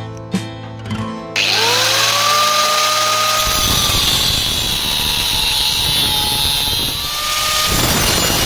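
Electric power tool working metal. Its motor spins up with a rising whine about a second and a half in, then runs steadily with a loud harsh hiss. Near the end it briefly slows and spins up again.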